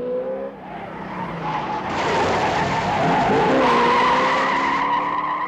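Car tyres skidding and squealing in a long, loud skid over a running car engine, loudest from about two seconds in until near the end. A police siren wailing fades out in the first moment.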